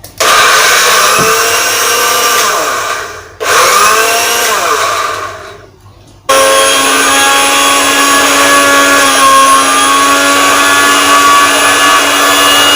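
Electric kitchen blender chopping tempe for fish bait: it runs about three seconds and winds down, runs again for about two seconds and winds down with a falling whine, then runs steadily from about six seconds in.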